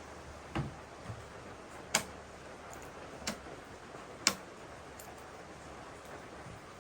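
Four sharp clicks or knocks at uneven spacing over a steady background hiss.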